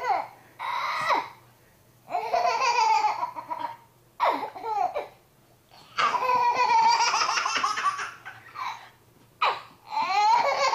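A baby laughing in repeated loud belly laughs, each burst a second or two long with short breaks between.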